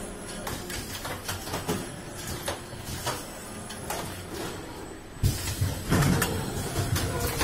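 KTK automatic screen printing machine running, with repeated mechanical clicks and knocks over a steady hum. It gets suddenly louder and deeper about five seconds in.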